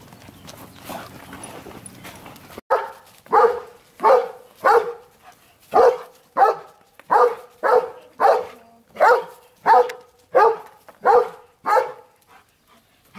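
A dog barking over and over: about fourteen sharp barks at a steady pace of roughly three every two seconds, starting a few seconds in.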